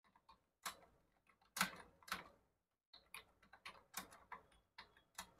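Faint, irregular keystrokes on a computer keyboard as a prompt is typed, with a short pause about halfway through.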